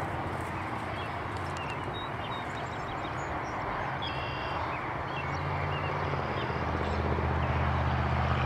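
Steady low engine hum from a motor vehicle, growing louder from about six seconds in, over a steady rushing outdoor noise, with a few faint high chirps.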